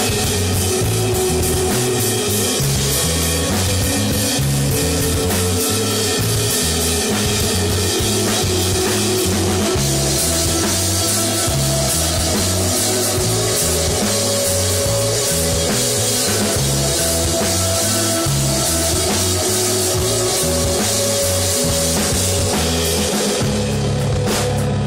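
Live post-rock band playing an instrumental passage: guitars and bass over a drum kit. The cymbal wash drops out near the end while the drums carry on.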